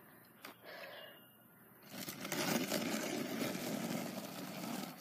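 Skateboard wheels rolling on asphalt, starting about two seconds in after a quiet stretch with a light knock.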